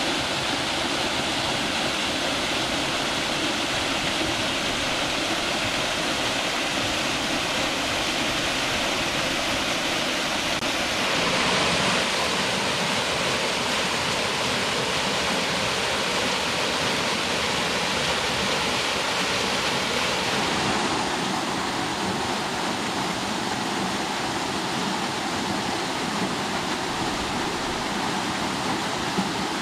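A waterfall rushing steadily, flowing well. Its tone shifts slightly twice, about 11 and 21 seconds in.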